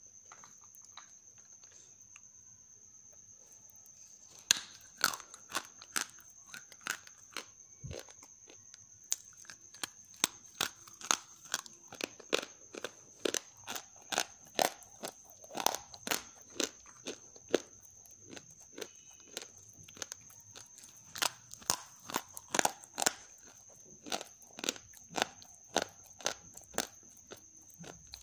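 Pieces of half-roasted grey clay, roasted crisp, cracking and crunching as fingers press and snap them in a bowl. After a few quiet seconds, sharp dry cracks come about one or two a second.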